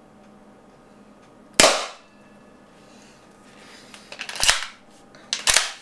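APS CAM870 CO2 airsoft shotgun firing a wax slug: one sharp, loud shot about a second and a half in. It is followed by a run of quieter sharp clacks around four seconds in and two more near the end.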